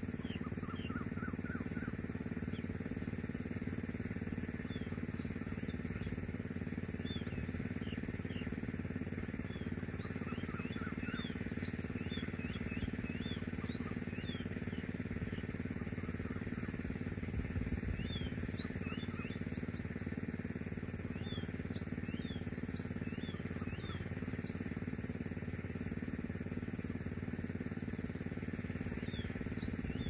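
High, thin chirps from red-whiskered bulbul nestlings begging, in quick runs about a second in and again around ten to thirteen seconds in, with scattered single chirps throughout. Under them runs a steady low rumble, which is the loudest sound.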